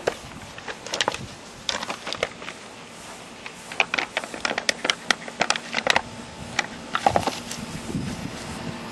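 Plastic soft drink bottle crackling and clicking in irregular clusters of sharp snaps, busiest in the middle, as a cairn terrier plays with it.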